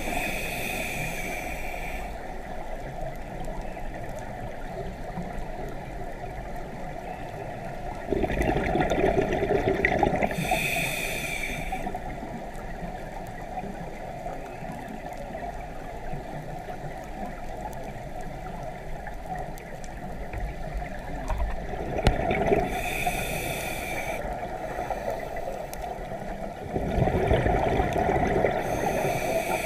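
Scuba diver breathing through a regulator underwater: a few slow breaths, each a gurgling rush of exhaled bubbles followed by a high hissing inhale, over constant underwater noise.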